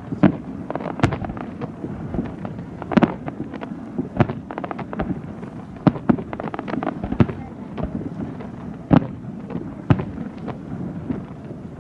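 Fireworks display: shells bursting in a steady run of loud bangs, roughly one a second, with quick clusters of crackling between them.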